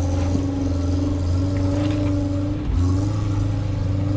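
A 4x4 engine running at steady, raised revs as the vehicle tries to climb forward over slippery rocks, with a brief drop in revs about two and a half seconds in.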